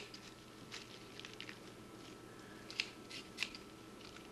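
Sharp scissors snipping through raw pancreas meat: a few quiet, short cuts at irregular intervals, the clearest two about three seconds in.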